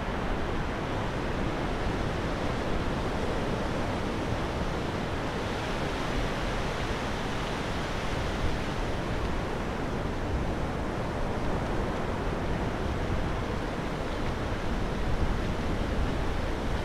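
Steady rush of surf breaking and washing up a sandy beach, mixed with a low rumble of wind across the microphone.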